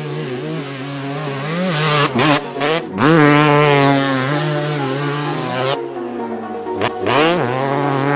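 Kawasaki KX250 single-cylinder two-stroke dirt bike engine revving hard, its note climbing and falling over and over as the throttle is worked, with the throttle chopped several times in short breaks; music plays underneath.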